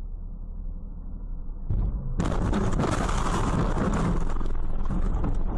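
Low tyre-and-engine hum inside a moving car, then about two seconds in a sudden loud car crash. The impact is followed by about three seconds of crashing and clattering.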